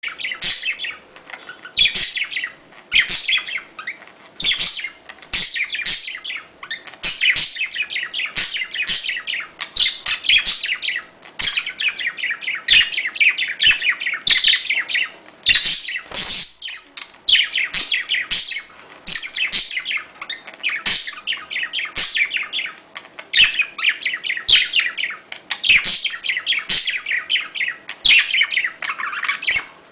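Budgerigars chattering in rapid runs of chirps and warbles, with only brief pauses between bursts: the budgie courtship or mating chatter used to bring birds into breeding condition.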